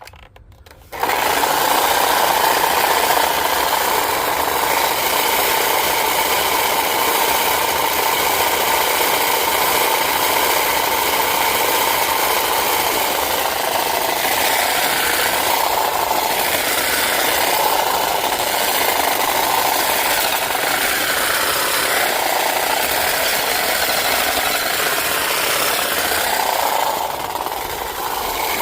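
Black & Decker Hedge Hog electric hedge trimmer starting about a second in and running steadily while its blades cut through hedge branches, its pitch wavering in the second half as it slows on thicker growth. The owner suspects the motor is cutting out because of a loose connection in the power cord.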